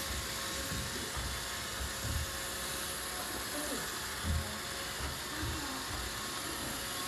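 Roomba robot vacuum running on a tile floor: a steady whir of its motor and brushes, with a few low thuds along the way.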